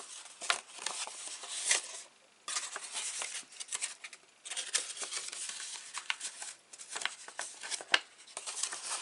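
Cardstock being folded and worked along its creases by hand: rustling and crinkling paper with many sharp little ticks and taps, pausing briefly twice.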